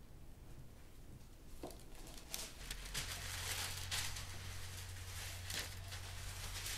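Baking parchment paper rustling and crinkling as it is unrolled across a wooden table and smoothed flat by hand, with a few sharp crackles. A low steady hum comes in about three seconds in.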